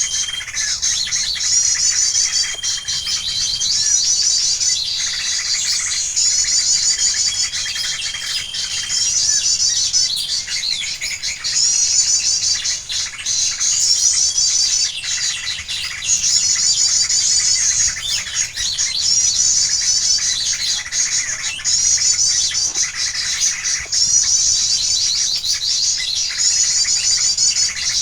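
Birds singing: a high, rapid trilling phrase repeated about every two seconds, with a few short whistled notes from other birds in between.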